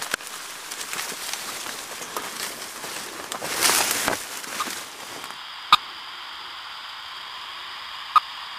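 Footsteps rustling and crackling through dense undergrowth. About five seconds in, this gives way to the steady static hiss of the radio-telemetry receiver, broken by two short ticks about two and a half seconds apart.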